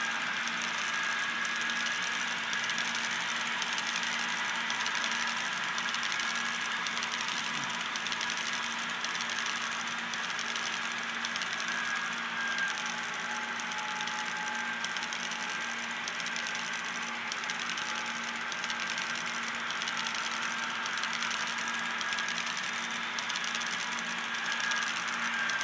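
HO-scale model coal train, a long string of hopper cars rolling over the layout's track: a steady running noise of wheels on rails with a thin, steady high whine and a low hum underneath.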